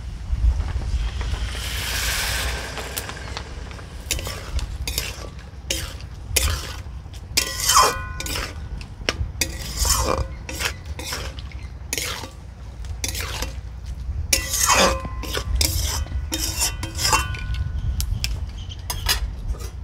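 Water poured into a hot pan of spiced potatoes and eggs hisses briefly about two seconds in; then a metal spatula scrapes and clinks against the metal cooking pan again and again, some strikes ringing briefly, as the curry is stirred.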